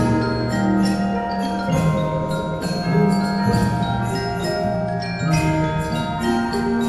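Percussion ensemble music: struck mallet percussion ringing out pitched, bell-like notes in a quick, even run over held low notes.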